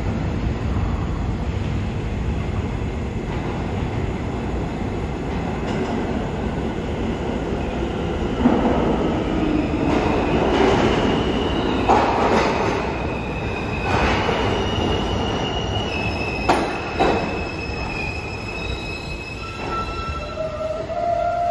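New York City subway train running through the station: a steady rumble that grows louder about a third of the way in, several sharp clanks, and high wheel squeal setting in about halfway.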